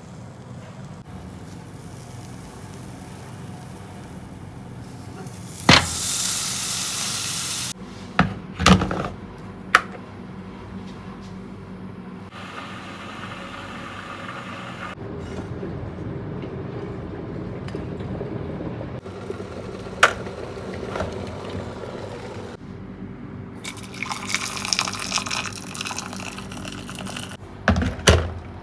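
Kitchen sounds: a water tap runs hard for about two seconds, then several sharp knocks of dishes or utensils. Later come quieter stretches of running or pouring water and a few more knocks.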